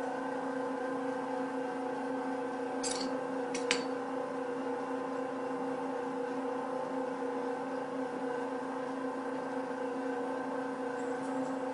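AEX18 tabletop pasta extruder running steadily, its motor driving the auger that pushes dough out through the die, a constant hum of several pitches. Two brief clicks come about three seconds in.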